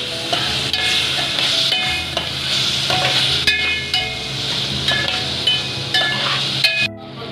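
A metal spoon stirring and scraping shredded cabbage and carrots in a metal pot, with frequent short metallic clinks against the pot, over a steady sizzle of the vegetables frying.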